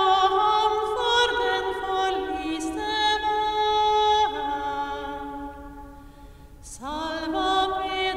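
A woman singing a hymn unaccompanied, in long held notes that step from pitch to pitch. A phrase ends and fades about five to six seconds in, and the next phrase begins just before seven seconds.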